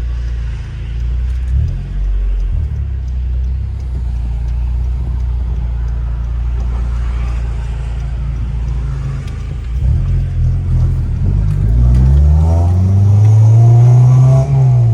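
Street-tuned 9th-generation Honda Civic Si's 2.4-litre four-cylinder engine running steadily at a low drone while driving, then accelerating from about ten seconds in, its note climbing for several seconds and dropping off sharply near the end.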